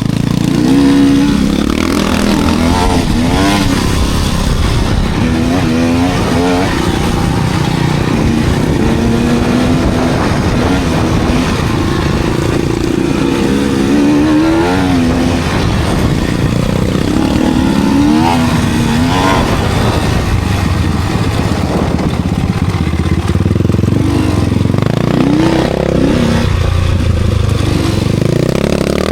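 Enduro dirt bike engine riding under load, revving up and easing off again and again every few seconds over a constant low rumble.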